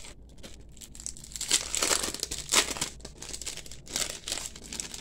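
Clear plastic sleeve crinkling in the hands as it is opened and paper sticker sheets are drawn out of it. The crinkles come in uneven bursts, the loudest about halfway through.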